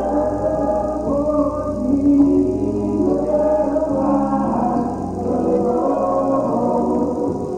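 Gospel music: voices singing long held notes together over a steady bass accompaniment.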